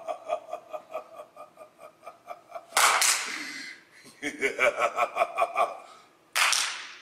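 A man laughing in rapid rhythmic 'ha-ha-ha' pulses, two runs of it, each broken off by a sudden loud noisy burst that fades out: one about three seconds in, one near the end.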